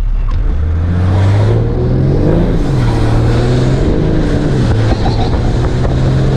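Tuned BMW 530d's M57D30 three-litre straight-six diesel, fitted with a big GTB30V turbo, pulling hard under acceleration. Its pitch climbs, drops back at two upshifts and climbs again.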